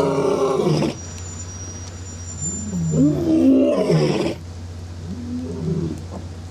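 Lion roaring: drawn-out calls that rise and fall in pitch, one ending about a second in, a loud one around three to four seconds in, and a weaker one near the end, over a steady low hum.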